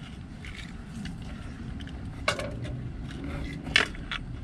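A few sharp clicks and light rustles of small objects being handled, the two loudest about two seconds and nearly four seconds in, over a steady low background rumble.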